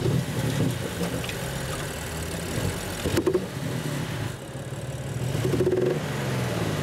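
BMW M3 engine running unevenly at idle just after starting, not firing cleanly: misfires, which the instructor puts down to a combustion fault in the engine rather than a lost exhaust part. The revs waver, with a slight rise near the end.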